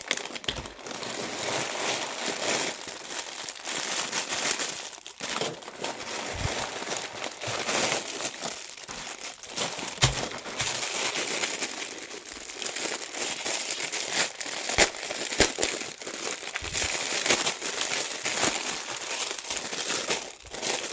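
Plastic packaging crinkling and rustling as fidget toys are unwrapped by hand, with frequent sharp crackles and clicks.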